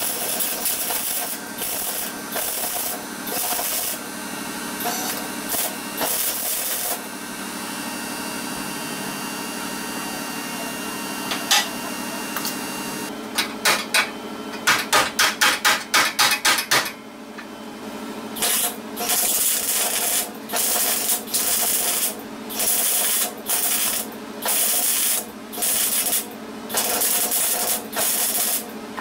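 Wire-feed (MIG) welder stitch-welding the steel radiator core support of a car in short crackling bursts of about a second each, with a quick run of rapid short zaps about halfway through. A steady low hum from the welder sits under the bursts.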